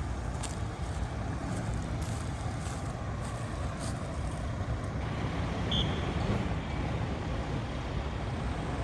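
Large vehicle's engine running with a steady low rumble, with a short high beep about two-thirds of the way through.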